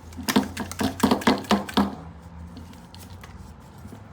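Shock pump working on the dropper post's air valve: a quick run of about eight clicking strokes in under two seconds, then it goes quieter.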